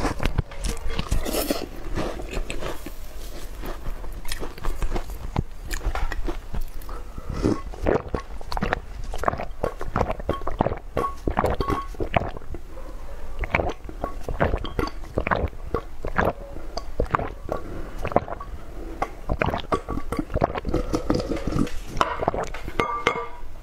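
Close-miked eating and drinking: wet chewing and mouth smacks on soft food fished from a glass bowl of milk tea, then gulps of the milk tea drunk straight from the tilted bowl, as a dense, irregular run of short smacks.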